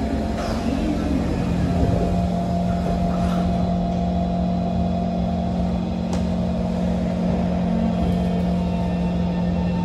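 Kawasaki C151 MRT car heard from inside: a steady electrical hum over low rumble, with the doors closing in the first couple of seconds.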